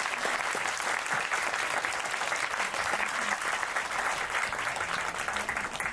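An audience applauding, dense and steady clapping.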